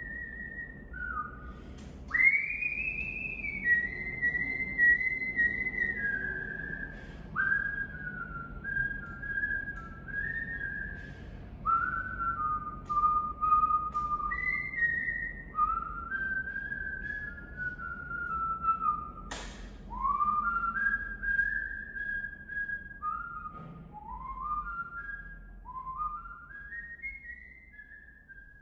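A person whistling a slow, wandering tune: one clear tone moving through held notes and short stepwise phrases, several notes scooped up into from below. A single sharp click cuts in about two-thirds of the way through.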